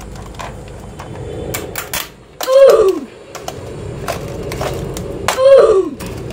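Claw hammer prying the aluminium bottom case off a MacBook: clicks and knocks of metal on metal, and twice a loud screech that slides down in pitch as the case bends.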